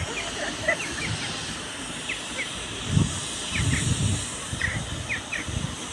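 Steady hiss of steam from a steam traction engine, with a few irregular low puffs from its exhaust in the second half; small birds chirp briefly now and then.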